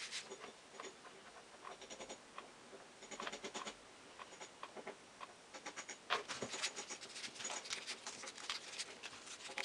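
Folded paper origami modules rustling and ticking as they are pushed onto a ring of white paper modules: faint, irregular small clicks and scratches in clusters.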